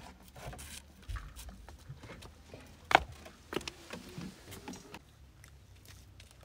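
Footsteps and scattered light knocks and clatters as a plastic jerry can and a small metal pot are picked up and carried, with one sharp knock about three seconds in.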